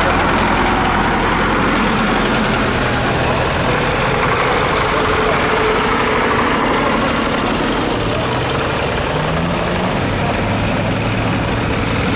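Tractor engines running, with a low engine note that changes pitch a couple of times.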